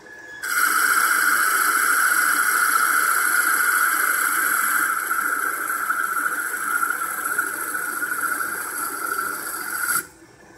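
Lathe turning tool cutting a spinning wooden workpiece on a CNC-converted South Bend SB1001 lathe: a loud, steady rushing scrape that starts about half a second in and stops abruptly near the end.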